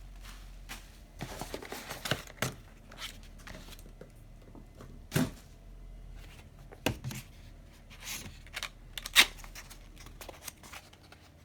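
Packaging being handled by hand: rustling and scattered clicks and knocks at irregular intervals, with one sharper click about nine seconds in.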